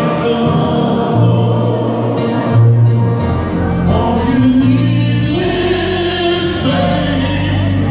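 Male vocal group singing a slow gospel-style song in harmony, held notes over a live band. Sung on stage through a concert sound system.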